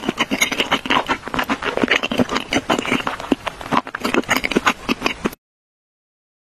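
Close-miked snacking sounds: dense crackling and clicking, cutting off suddenly about five seconds in.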